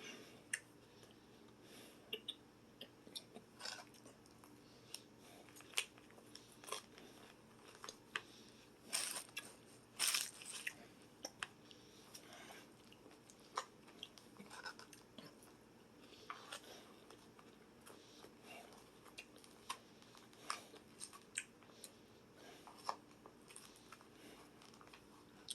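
Close-up chewing and crunching of raw salad vegetables: irregular crisp crunches and clicks, the loudest bites about nine to ten seconds in.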